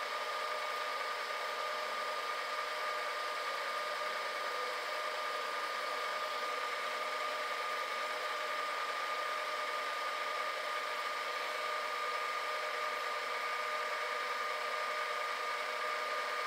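Monarch lathe running at slow spindle speed: a steady mechanical hum with a constant high whine.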